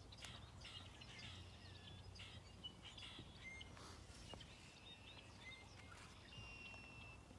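Near silence outdoors: faint birds chirping on and off over a low steady background rumble, with a thin held whistled note near the end.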